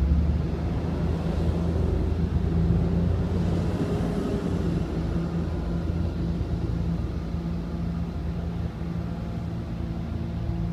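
Street traffic: a steady low engine hum, with a truck driving past around the middle.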